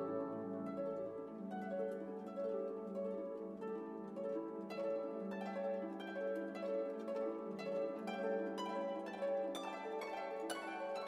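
Background instrumental music: plucked string notes over held lower tones.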